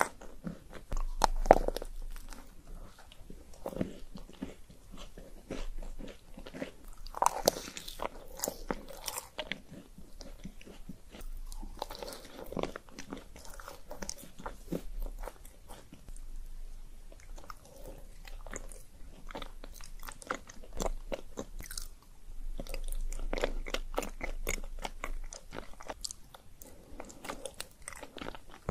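Close-miked eating of chocolate-coated sweets, a round chocolate marshmallow cookie treat and chocolate-dipped filled mochi balls: crunchy bites and steady chewing with many small mouth clicks. The loudest bite comes about a second and a half in.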